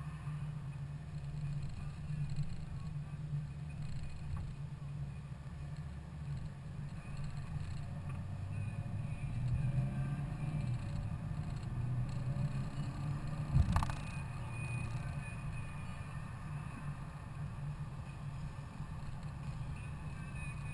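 Car cabin noise while driving: a steady low rumble of engine and road. The engine note rises as the car accelerates around the middle, and a single sharp knock comes a little after.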